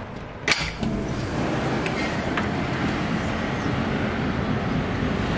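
A click as the sliding balcony door's latch is worked and the door opened, then steady outdoor street traffic noise with a low rumble.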